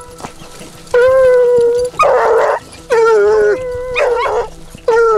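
A pack of Ariégeois scent hounds giving tongue on a hare's scent: a run of long, drawn-out bays starting about a second in, one of them rougher and harsher.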